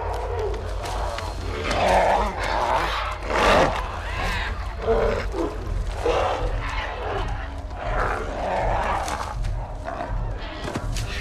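A troop of baboon-like monkey mutts calling from the trees in a string of overlapping hoots and cries that rise and fall in pitch, over a low steady rumble.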